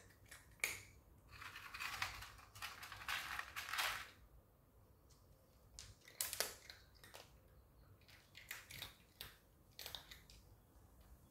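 A cat crunching dry kibble: dense runs of crisp crunching for the first few seconds, then fewer, scattered crunches.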